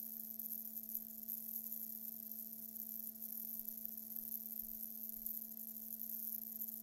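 Electric guitar strings drone on one steady pitch with overtones, set vibrating by a small roll of cardboard rotating on them, with a faint, flickering high hiss over the drone.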